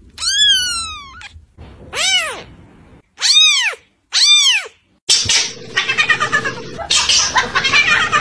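A white kitten meowing. First comes one high meow falling in pitch, then three short rising-and-falling meows. From about five seconds in a grown cat gives a continuous, rapidly wavering "wawawa" yowl.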